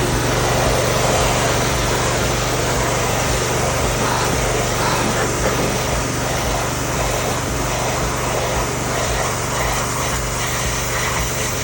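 Pressure washer running steadily, its motor humming under the hiss of the high-pressure water jet as it blasts the blackened husks off butternuts.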